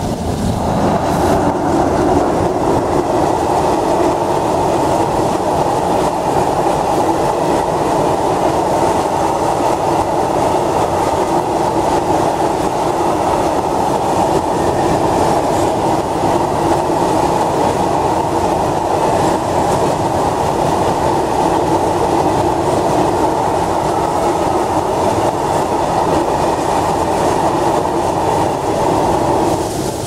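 Freight train of Eas open wagons, headed by a class 131 twin electric locomotive, passing close by: a steady, loud rumble of wheels on the rails that swells about a second in as the wagons roll past.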